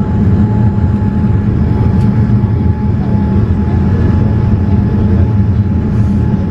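Steady cabin noise inside a Boeing 787-8 airliner on its descent to land: a low rumble of the engines and rushing air, with a thin steady whine above it.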